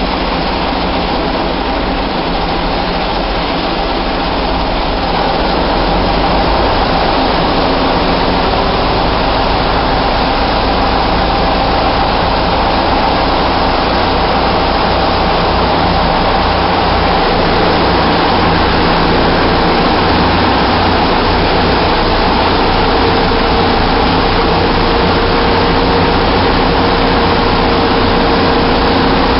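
Hotspur IV ferry's marine diesel engine running steadily under way, loud and close, with a steady hum of several tones; it grows a little louder about five seconds in.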